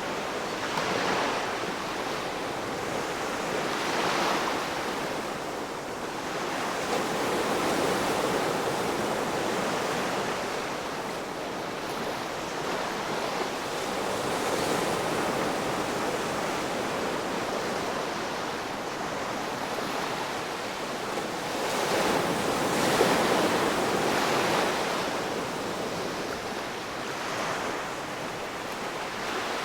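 Ocean surf washing onto a shore: a continuous rush of water noise that swells and ebbs as each wave breaks, with the biggest surge about three-quarters of the way through.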